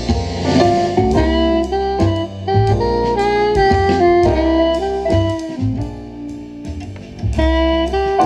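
Music played loud through a TDA2822M stereo amplifier board driving a small oval speaker. The board's 1.5K input divider resistor has been swapped for a 4.7K, which lets more signal through so it plays louder.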